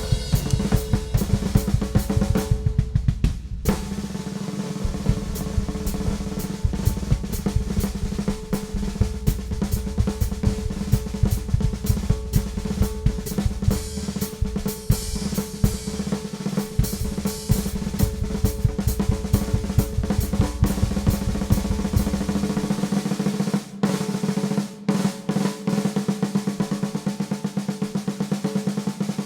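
Ludwig Classic Maple drum kit with a Ludwig Supraphonic snare played freely, in dense snare rolls and fills over the bass drum, with the drums ringing. There is a short break about three seconds in. In the last quarter the bass drum drops out, leaving snare rolls.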